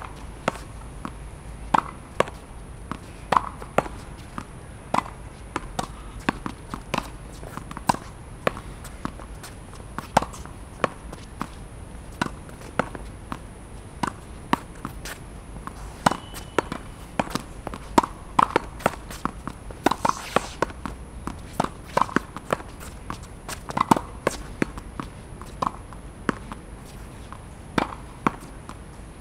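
Tennis ball hit against a practice wall: an irregular string of sharp pops, a few each second, from racket strikes, the ball striking the wall and bouncing on the court.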